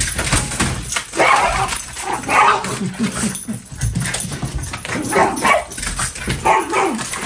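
Small dogs barking and yipping frantically, many barks in quick succession, set off by mail coming through the front door's mail slot.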